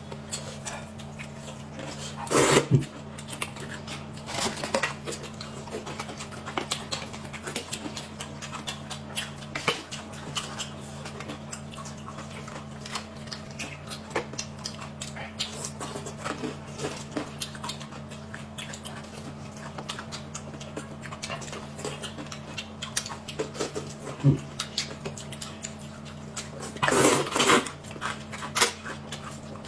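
Eating sounds: utensils clicking against paper noodle cups, chewing and slurping, with a steady low hum underneath. There is a louder burst about two seconds in, and a long noisy slurp of rice noodles near the end.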